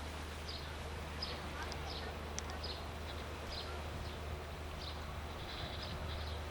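Outdoor ambience: a steady low rumble under short, high-pitched chirps that repeat irregularly, a few times a second.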